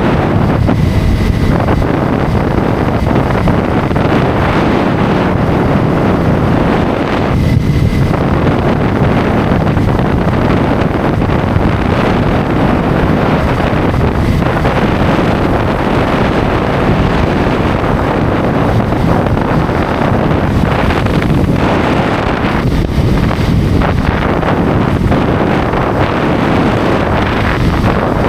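Wind rushing over the microphone of a motorcycle at highway speed: a loud, steady roar with road and engine noise beneath it.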